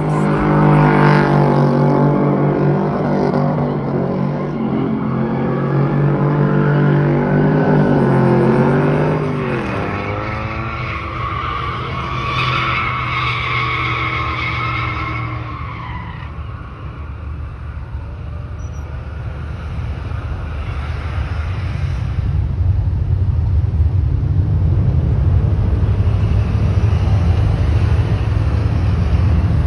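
Pickup trucks doing burnouts: an engine held at high revs, its pitch falling off about ten seconds in, then tires squealing for a few seconds, and a deeper engine rumble that builds toward the end.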